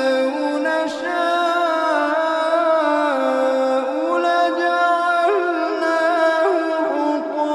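Quran recitation: one voice chanting in long drawn-out notes with melodic turns and slides between them.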